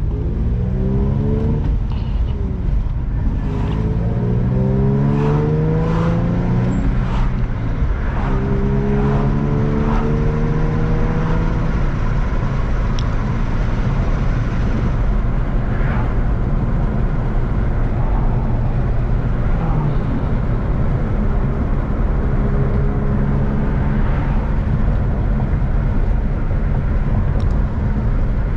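Infiniti G35's V6 engine accelerating hard through the gears: its note climbs three times in the first part, dropping back at each shift. It then settles into a steady drone over low road rumble.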